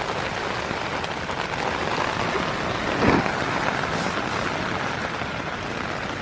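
Heavy rain pouring steadily, a dense even hiss, with a single brief thump about three seconds in.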